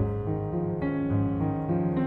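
Background music: held notes that change every half second or so.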